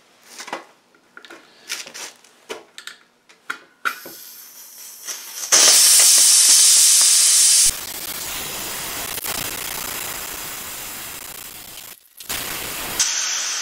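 Small clicks and scrapes of an awl poking at a Snap-on 20-gallon air compressor tank's drain hole. About four seconds in, trapped compressed air breaks through and escapes in a hiss that turns very loud, then settles to a steadier, slowly fading hiss, cut off briefly near the end before resuming. The drain hole was completely plugged by a film of sludge and rust from condensation never being drained.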